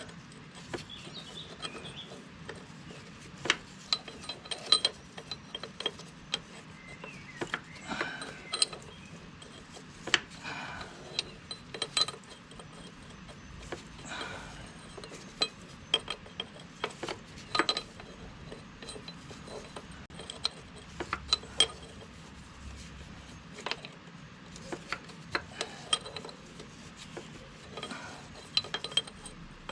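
Hand tools working on the backhoe's metal hydraulic pipe fittings: irregular clicks, clinks and light knocks of spanners on metal, some with a short ring.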